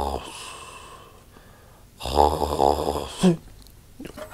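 Snoring: the tail of one long snore fades at the start, and a second snore comes about two seconds in and lasts just over a second. A couple of faint ticks come near the end.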